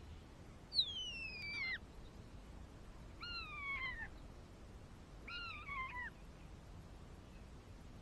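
An animal calling three times: high calls, each falling in pitch over about a second, about two seconds apart.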